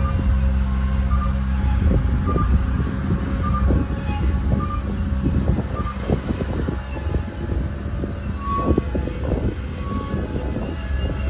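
Freight train boxcars rolling past. A steady low rumble runs under repeated clanks and knocks of the wheels from about two seconds in, with a thin high squeal from the wheels on the rail.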